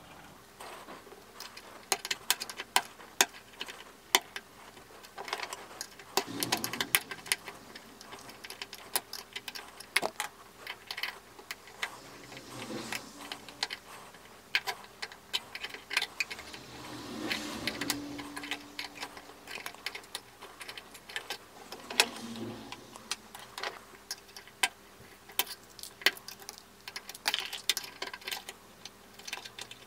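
Irregular small metallic clicks and ticks as steel pliers and a pick pry at a ball bearing's brass cage to take it apart, the metal parts knocking against each other.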